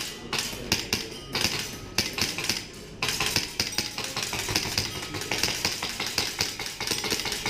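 VFC Sig M17 green-gas blowback airsoft pistol firing a rapid string of shots, each a sharp clack as the slide cycles.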